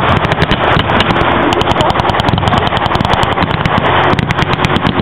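Continuous blank small-arms fire from a WWII battle reenactment, a dense crackle of many shots a second.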